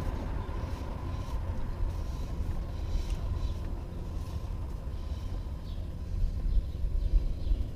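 Low, uneven background rumble with faint scattered clicks and taps.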